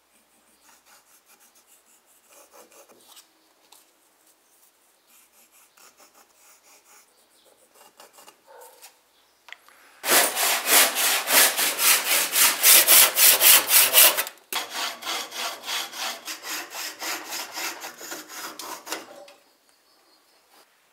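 Hand saw cutting through a wooden block in even strokes, about four a second, starting about halfway through, louder at first and softer for the last few seconds before it stops. Before it, faint scratching of a pencil tracing an outline on the wood.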